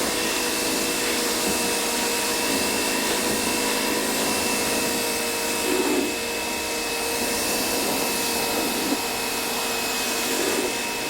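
Coyardor CP2500 electric pressure washer running with a 40-degree nozzle spraying: a steady motor-and-pump whine over the hiss of the water jet.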